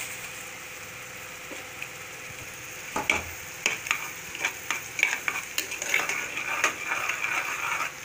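Steel ladle stirring thick masala paste in an aluminium pressure cooker, with the paste sizzling in hot oil. About three seconds in, the ladle starts to scrape and knock against the pot in quick, irregular clicks.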